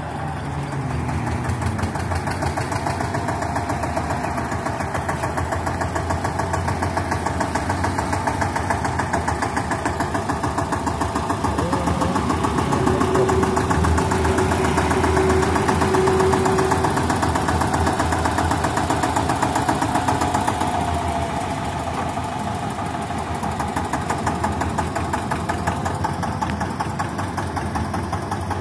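Eicher 241 tractor's single-cylinder diesel engine running steadily as the tractor works a front loader with a bucket full of sand. It gets louder through the middle, where a steady whine joins in, then eases off near the end.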